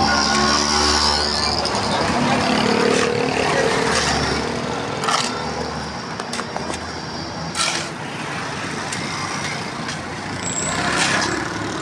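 Street traffic: engines of motor vehicles such as auto-rickshaws and motorcycles running close by, with two short sharp knocks about halfway through.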